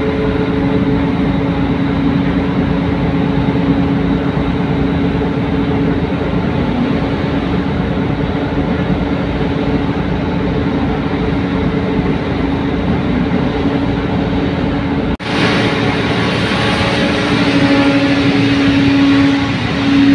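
Car ferry's engine running with a steady hum under rumbling wind noise. About fifteen seconds in, the sound cuts abruptly to the vehicle deck, where the engine hum continues with more hiss.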